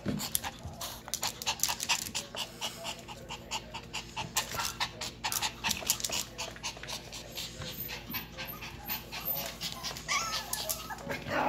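Yorkshire terrier panting close by in quick, uneven breaths.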